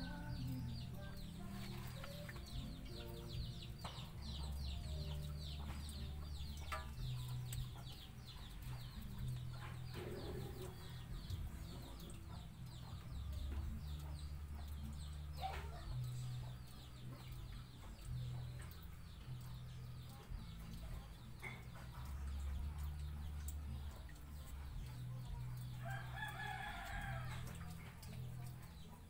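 Chickens clucking, with a rooster crowing once near the end, over a low pulsing hum.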